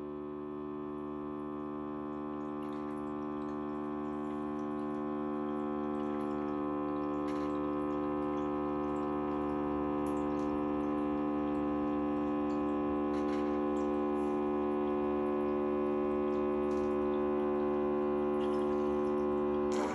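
HumminGuru ultrasonic vinyl record cleaner running: a steady electric hum with many overtones that slowly grows louder, with faint drip-like ticks above it. Right at the end it changes abruptly to a broad rushing sound.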